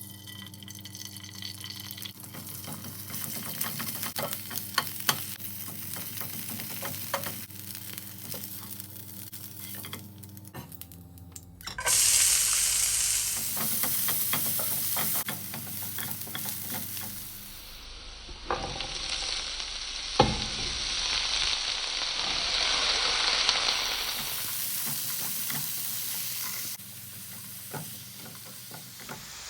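Food frying in a hot pan, sizzling, while a utensil stirs it with scattered knocks against the pan. The sizzle jumps much louder about twelve seconds in, and a sharp knock sounds about twenty seconds in.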